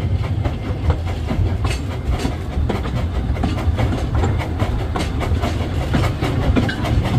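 Narrow-gauge steam train running slowly, heard from the carriage behind the locomotive: a steady low rumble with irregular clicks and knocks from the wheels on the track.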